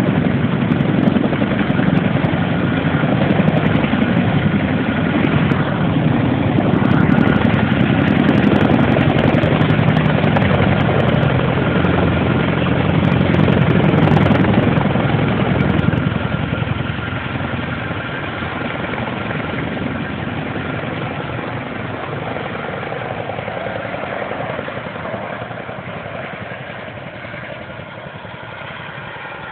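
Tandem-rotor helicopter running, loud through the first half, then dropping off about halfway and fading steadily toward the end.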